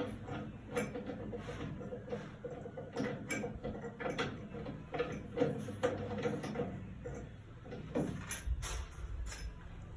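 Irregular clicks and light knocks of parts and tools being handled during installation of a concealed toilet tank frame, over a faint steady hum.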